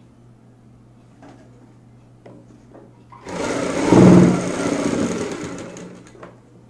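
Industrial sewing machine stitching an elastic waistband onto a garment, in one burst of about three seconds that starts a few seconds in, loudest at first and then tapering to a stop. Before it, only a low steady hum and a few soft clicks of the cloth being handled.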